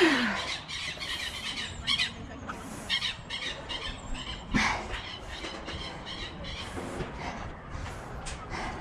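A loud squawking bird call that falls in pitch right at the start, and another brief call about four and a half seconds in, over a rushing noise.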